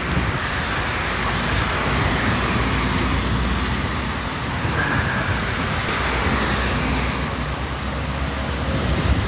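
Steady noise of traffic on a wet city street, with wind buffeting the microphone.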